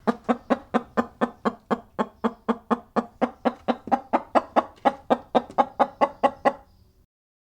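An animal giving a rapid, even series of short clucking calls, about four a second, that stops abruptly near the end.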